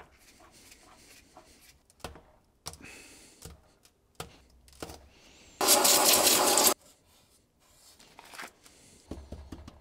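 Hands working on a plastic intake manifold and its fittings on a metal bench: scattered light clicks and knocks. Just past the middle comes one loud hiss lasting about a second that starts and stops abruptly.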